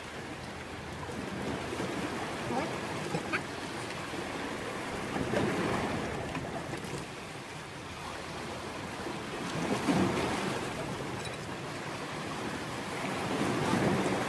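Small sea waves washing onto the beach, the rush swelling and fading three times, about every four seconds.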